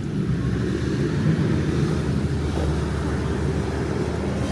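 Steady rumble of road and wind noise from a moving vehicle.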